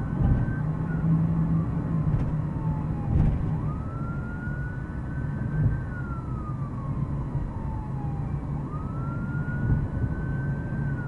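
Emergency vehicle siren on a slow wail, rising, holding, then falling and starting over about every five seconds, over the steady low rumble of a car driving.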